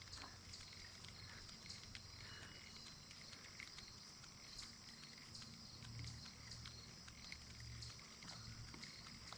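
Near silence: faint outdoor background, a steady high hiss with scattered soft ticks, and a low rumble coming in about six seconds in.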